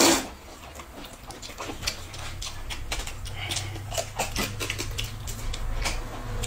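Close-up eating sounds: the end of a noodle slurp at the start, then chewing, lip smacks and light clicks of chopsticks. A low steady hum comes in about two seconds in.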